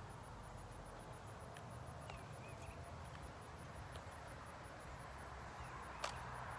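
Quiet outdoor ambience: an insect chirping in a steady high pulse about four times a second over a faint low rumble of wind. A faint bird chirp comes about two seconds in, and a single sharp click about six seconds in.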